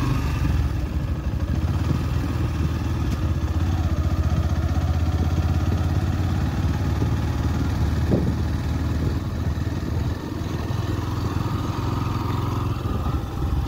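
Motorcycle engine running steadily as the bike is ridden along, with a single short knock about eight seconds in.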